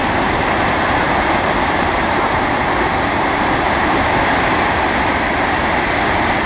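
Whitewater rapids rushing steadily and loudly, an even unbroken rush of water.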